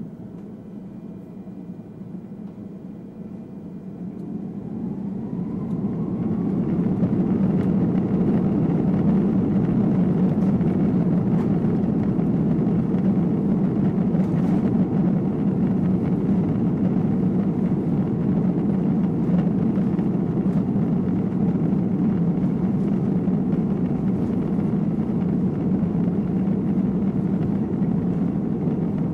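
Airbus A340-600's four Rolls-Royce Trent 500 turbofans spooling up to takeoff thrust, heard from the cabin over the wing. About four seconds in, a rising whine climbs and the noise grows louder, settling into a steady loud engine rumble from about seven seconds as the aircraft rolls.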